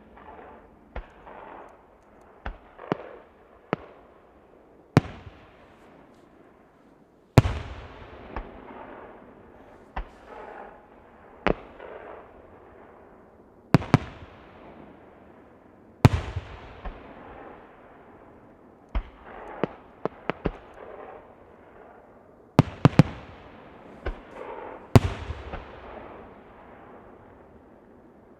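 Aerial fireworks shells bursting one after another, each sharp bang followed by a long echoing crackle as it fades, with several heavy booms among smaller pops.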